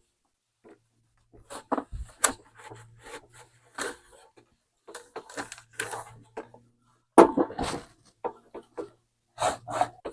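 Spray cleaner being used on a lawnmower deck: a string of short, irregular spray and handling noises with brief pauses between them.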